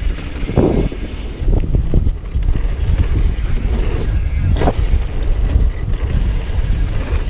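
Downhill mountain bike running fast down a dirt trail: heavy wind buffeting on the camera microphone over the rumble of the tyres, with a few sharp knocks and rattles as the bike hits bumps.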